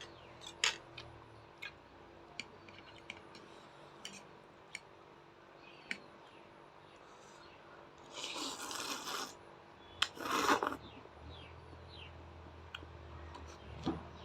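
Close-up eating sounds: quiet chewing with scattered small clicks, and two louder rasping, crunchy bursts about eight and ten seconds in.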